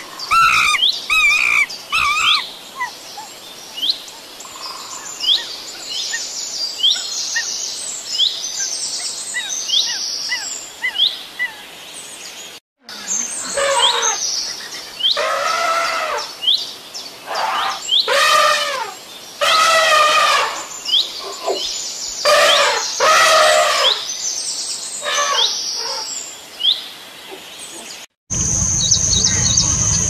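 Wild birds chirping with many quick, high chirps. In the second half comes a series of long, loud animal calls that rise and fall in pitch, each about a second long. Near the end a steady high-pitched tone starts over a low rumble.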